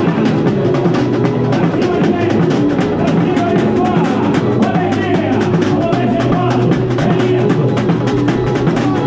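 Samba-enredo played live through a samba school's sound-truck PA: voices singing the melody over a dense, driving samba percussion beat.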